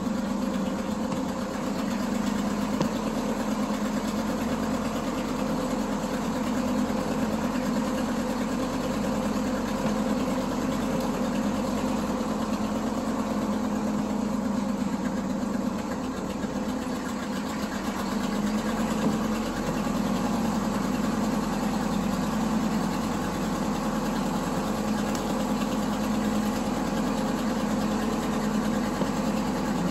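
Old dump truck's engine running steadily with a deep hum, heard from inside the cab. It eases off a little about halfway and then picks up again.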